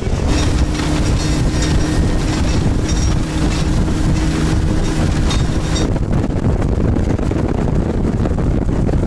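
Outboard motor running at speed, its steady engine tone mixed with heavy wind on the microphone and water rushing past the hull. About six seconds in the engine tone drops out, leaving only wind and water noise.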